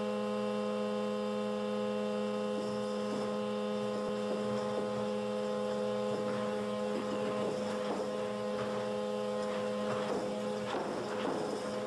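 Wine bottles clinking and rattling in a wooden wine rack as a hydraulic seismic shake table shakes it in an earthquake test: a few clicks at first, becoming a dense rattle from about halfway through, busiest near the end. A steady hum with several pitches runs underneath.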